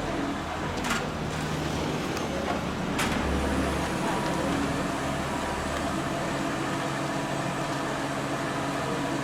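A vehicle engine running steadily, with two sharp knocks about one and three seconds in.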